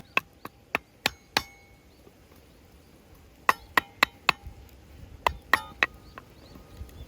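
A series of sharp clinking strikes, about a dozen in three quick groups, each with a brief ring.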